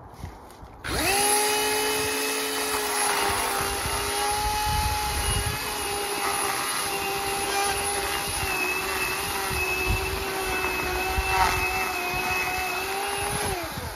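Ryobi 18-volt brushless cordless chainsaw starting abruptly about a second in and running steadily as it cuts into a dead tree trunk, its electric motor and chain whining at a near-constant pitch. It winds down with a falling pitch near the end.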